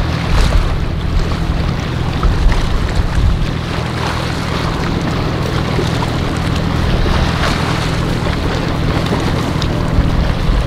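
Small motorboat running past through choppy water, its engine a steady low drone under the wash and splash of its wake, with wind buffeting the microphone.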